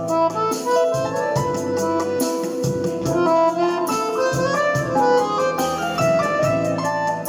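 Accordion playing a melody over a MIDI backing track, with a steady electronic drum beat and bass line.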